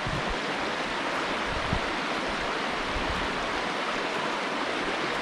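Shallow river running over a stony bed: a steady rush of water.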